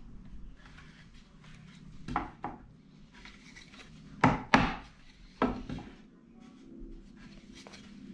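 Wooden knocks as clamped chair parts are tapped into alignment before screwing: three pairs of sharp taps, the two in each pair about a third of a second apart, the loudest pair a little past the middle.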